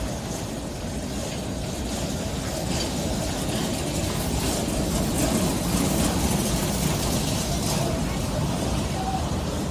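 Freight train of covered steel coil cars rolling past close by at low speed: a steady rumble of steel wheels on the rails with a light clatter from the cars, swelling slightly in the middle.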